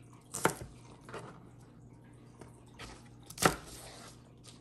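Chef's knife chopping through a bunch of spring onions onto a plastic cutting board: two sharp chops about three seconds apart, the second louder, with a few lighter knocks between.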